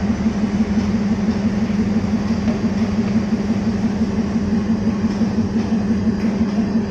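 Diesel engine of a train idling: a steady, low drone with a fast throb.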